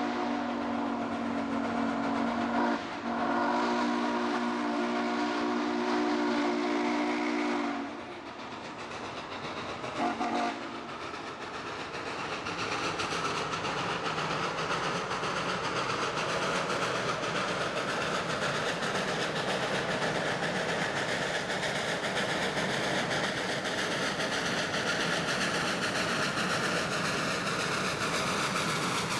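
Steam whistle of Western Maryland 734, a 1916 Baldwin 2-8-0 steam locomotive, sounding a chord in two long blasts with a short break between them, then one short blast about ten seconds in. After that, the working locomotive and its train make a steady rumble that grows louder as it approaches.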